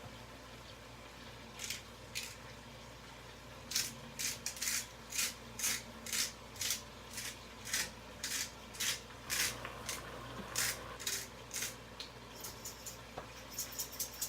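Salt being added to the pan from a dispenser: a run of short gritty rattles about two a second, then a quicker run of lighter ticks near the end.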